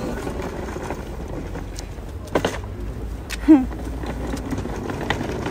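Steady low outdoor rumble with a few light clicks, and a brief wavering voice-like sound about three and a half seconds in.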